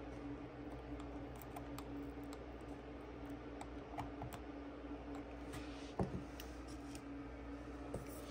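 Scattered light clicks and ticks of small hand tools working on a circuit board during a capacitor rework, with one louder knock about six seconds in, over a steady low hum.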